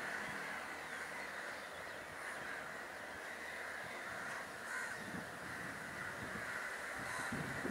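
Crows cawing repeatedly against a steady outdoor background noise.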